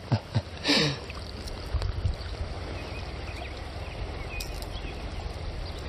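Steady low wind rumble on the microphone with river water in the background, and a brief murmur and a short noisy burst in the first second.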